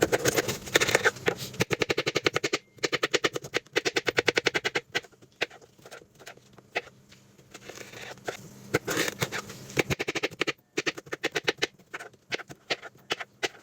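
Kitchen knife chopping a cucumber on a cutting board: runs of quick, rhythmic chops, several a second, broken by short pauses.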